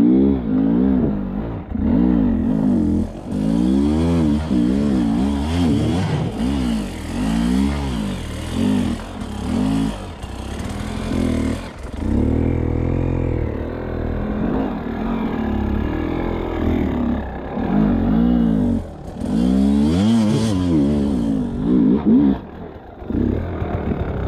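Dirt bike engine revved in repeated short bursts, its pitch rising and falling every second or two, under load on a steep climb.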